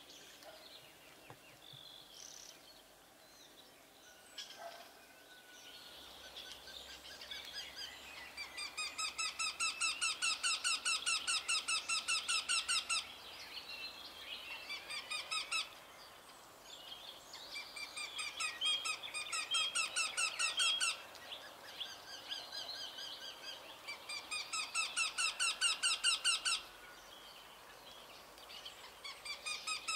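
Wetland animal calls: four series of rapid, evenly repeated chattering notes, about five a second, each series lasting about three to five seconds, with faint scattered chirps before them.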